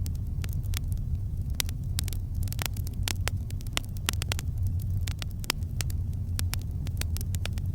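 Campfire burning, with many sharp, irregular crackles and pops from the burning wood over a steady low rumble of the flames.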